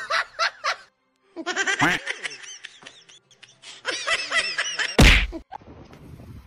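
Small child's squealing laughter in repeated short bursts, cut off by a sudden loud thump about five seconds in.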